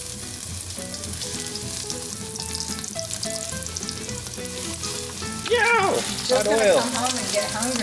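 Breaded frog legs frying in a pan of hot oil: a steady sizzle.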